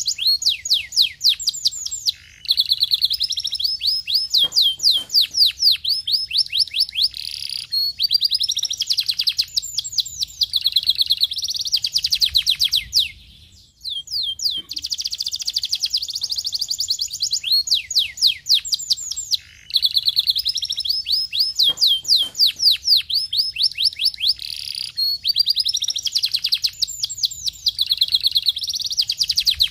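Domestic canary singing a long, fast, high-pitched song of rolling trills and rapid runs of repeated falling notes, with a brief pause about fourteen seconds in.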